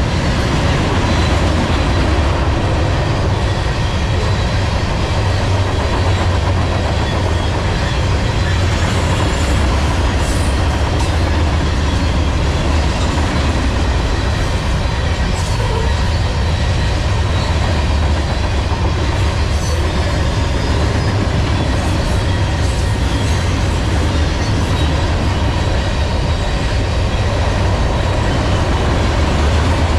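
Freight train of gondola cars rolling steadily past: a constant rumble of steel wheels on the rails, with occasional light clicks over rail joints.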